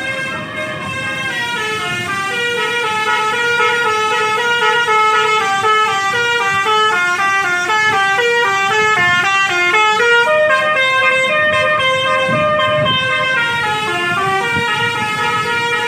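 Telolet horn on an NPM intercity bus, a set of air-horn trumpets switched in sequence, playing a long melody of quick stepped notes with several sounding together. The notes cascade downward and then climb back up, twice over, without a break.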